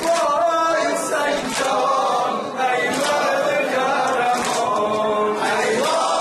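A male reciter chanting a noha, a Muharram lament, into a microphone without instruments, in long sung lines.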